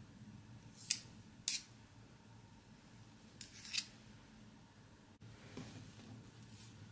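Two metal teaspoons clicking and scraping against each other as chocolate paste is pushed off one spoon with the other: four short, sharp clicks in two pairs.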